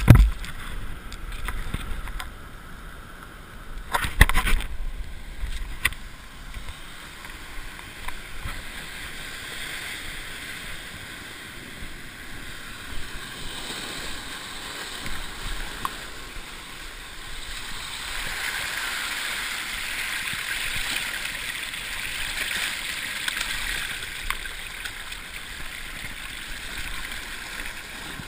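Sea surf washing and breaking over shore rocks as a steady rush that swells in the second half. A loud thump comes right at the start, and a few knocks follow about four seconds in.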